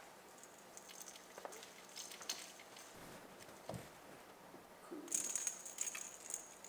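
Faint rustling and scratching of a cat's claws gripping a cat tree's faux-fur platforms and wooden branch posts as it climbs, with scattered light clicks and a denser scratchy stretch about five seconds in.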